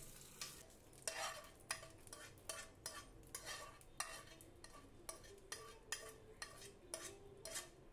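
Faint, irregular clicks and scrapes of a spoon scraping ghee tempering out of a nonstick frying pan.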